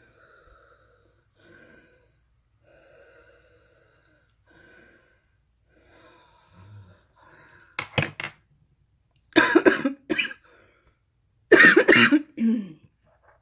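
A woman wheezing during an asthma attack: faint wheezy breaths with a thin whistling tone, then coughing in three bouts from about eight seconds in, the loudest near the end.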